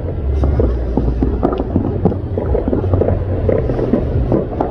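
Aerial fireworks going off in quick succession: a steady low rumble of booms with many sharp pops and crackles over it.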